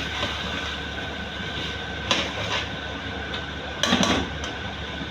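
Metal spoon scraping and clanking against a karahi while mutton is stir-fried in ghee, over a steady sizzle. Two short bouts of clatter stand out, about two seconds in and, louder, about four seconds in.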